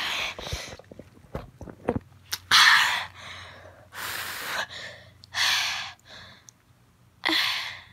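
A child breathing hard in and out through an open mouth: about five loud, hissing breaths with a few small mouth clicks early on. This is the panting of a mouth burning from spicy hot Cheetos.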